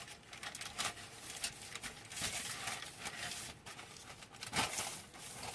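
Irregular rustling and rubbing handling noises as seasoned pork tenderloin is worked and rolled through loose spice rub.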